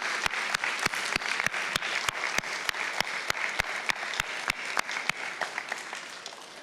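Audience applauding, with sharp claps close to the microphone standing out about three times a second. The applause fades away near the end.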